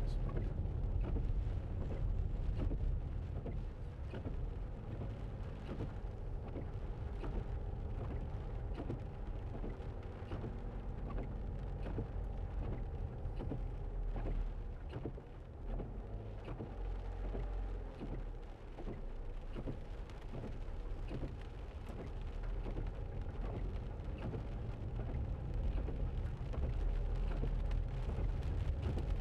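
Land Rover Freelander 2 driving slowly on a wet road, heard inside the cabin: a steady low rumble of engine and tyres, with rain ticking on the windscreen and a wiper sweep at the start.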